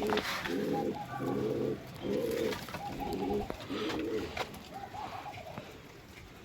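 Domestic pigeons cooing in a run of repeated coos, each less than a second long, which die away after about four and a half seconds.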